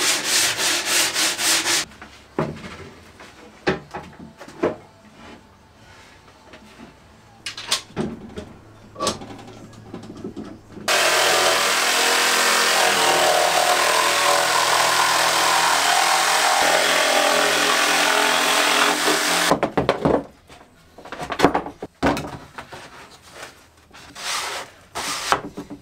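Sanding of a wooden board that stops about two seconds in, then scattered knocks and clatter of boards and tools being handled. From about eleven seconds in, an electric jigsaw runs for about eight seconds, cutting an opening in an OSB board, followed by more wooden knocks as the pipe pieces are set in place.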